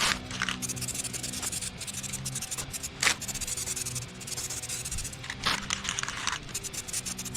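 A few separate rubbing, scraping strokes, like hand sanding, each lasting under a second, over steady background music.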